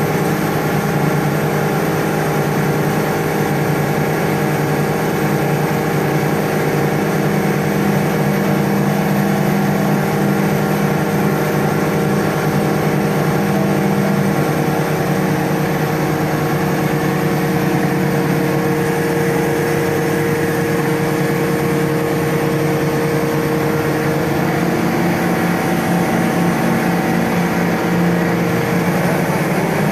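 Truck-mounted mobile crane's engine running steadily under load as the hook and boom are worked, its pitch shifting slightly now and then.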